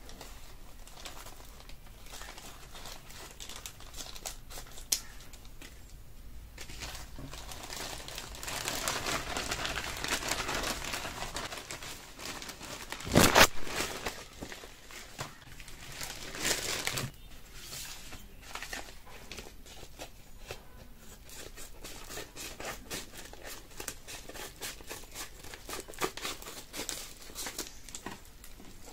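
Product packaging being handled and unwrapped: crinkling and rustling with many small clicks and taps. There is a denser stretch of rustling partway through and a sharper knock about thirteen seconds in.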